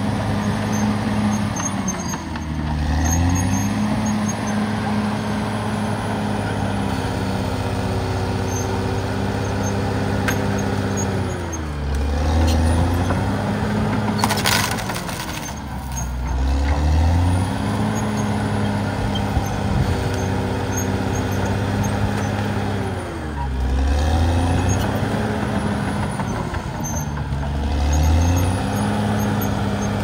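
Caterpillar D6R XL bulldozer's diesel engine running under load as it pushes brush and soil, its pitch dropping and recovering several times as the engine lugs down and picks back up.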